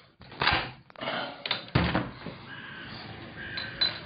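Several knocks and thumps of a window and its frame being handled and opened, the loudest about two seconds in.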